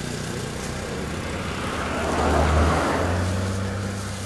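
A motor vehicle's engine running with a low, steady drone. It swells louder with a rush of noise about two and a half seconds in, then eases off.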